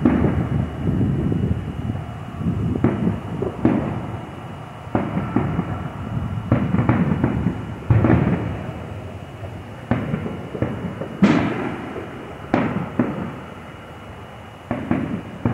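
Aerial fireworks bursting in quick succession: a string of booms and sharp cracks with low rumbling between them. The sharpest bang comes about eleven seconds in, and the bursts thin out near the end.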